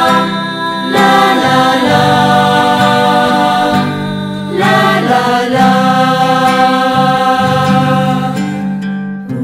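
Music: a Christian song, with voices singing long held notes over the accompaniment.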